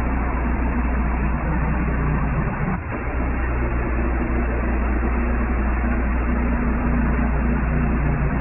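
Woodland Mills portable bandsaw mill running steadily, its engine under load as the band blade cuts through a knotty spruce log.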